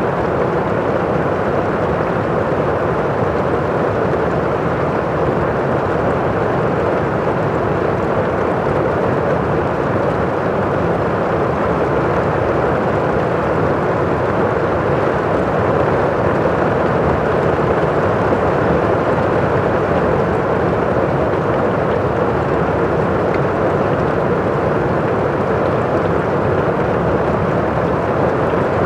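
Heavy rain falling on a roof, heard from inside a house: a steady, muffled rushing hiss with no breaks.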